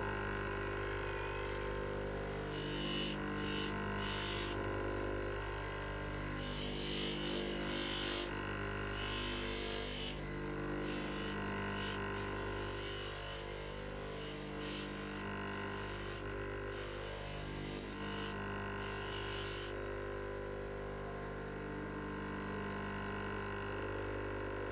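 Electric bench motor spinning a pink polishing wheel on a tapered spindle, with a steady hum. A silver ring is pressed against the wheel in a series of short hissing grinding passes over the first twenty seconds or so, then the hum goes on alone.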